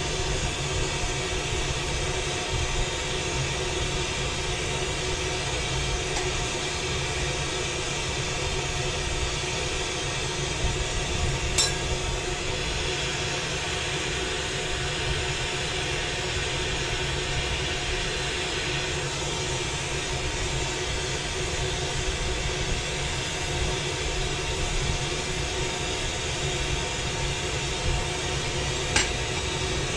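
Glassworking bench torch burning steadily, a continuous even hiss, while a glass piece is worked in the flame; two sharp clinks, one about twelve seconds in and one near the end.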